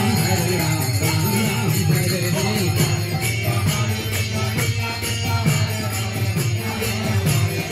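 Kirtan music with a steady jingling of small hand cymbals (karatals).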